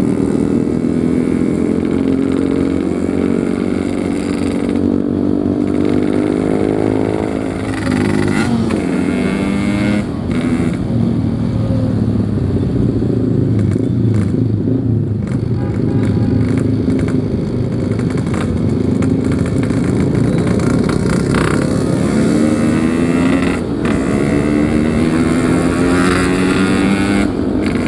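Yamaha RX-King's 135cc two-stroke single-cylinder engine riding along, its pitch climbing repeatedly as it accelerates and dropping back at each gear change.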